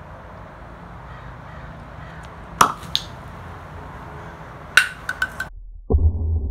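Alka-Seltzer film-canister rocket going off with one sharp pop about two and a half seconds in, followed by a smaller click, then a quick run of four sharp clacks near five seconds as the plastic canister comes down on concrete. The sound cuts out abruptly, then a muffled low thump follows near the end.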